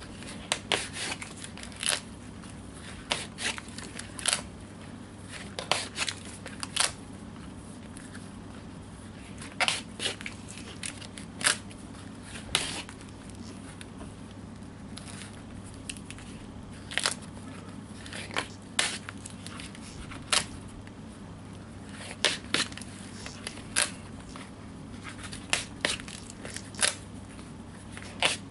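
Waxed linen shoemaking thread being pulled quickly through a folded leather pad to rub wax onto it, giving short, sharp strokes in irregular clusters, each lasting a fraction of a second.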